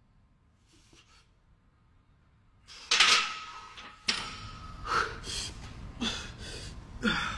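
Steel barbell lifted off the rack's J-hooks about three seconds in, a sharp metallic clank that rings on for about a second, followed by a few short strained grunts from the lifter on the bench.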